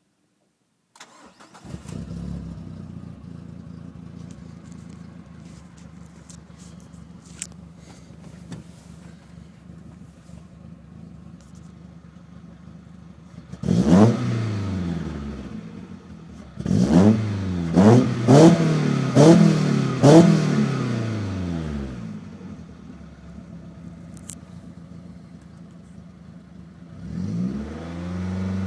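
Car engine starting about a second in and settling to a steady idle, then revved once and blipped several times in quick succession, each rev rising and falling back to idle, with another rev building near the end.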